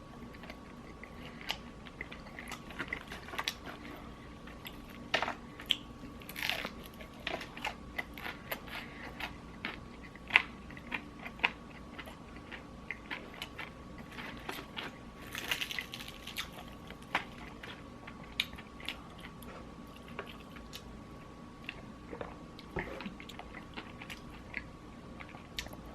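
Close-up eating of crispy fried chicken: bite after bite of crunchy breading and chewing, in short irregular crunches.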